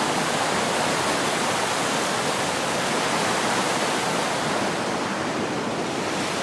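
Fast-flowing river rushing over white water: a steady, loud roar of water.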